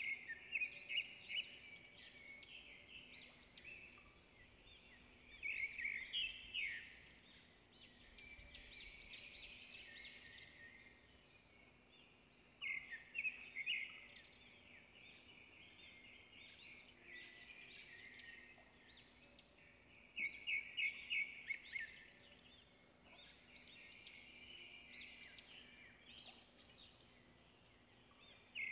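Birds singing outdoors: short bursts of rapid, high chirping notes every few seconds.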